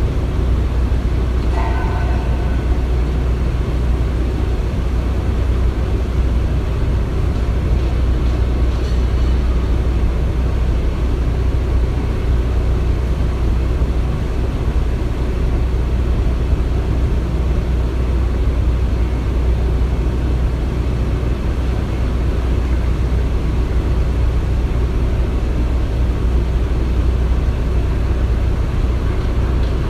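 Construction-site ambience: a steady, heavy low rumble of machinery, with a brief higher-pitched squeal about two seconds in.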